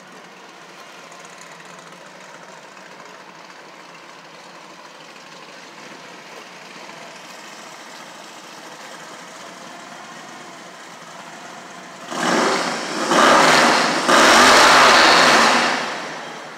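Steady low hum of street traffic. About twelve seconds in, a loud rushing vehicle noise swells twice and dies away after about three and a half seconds.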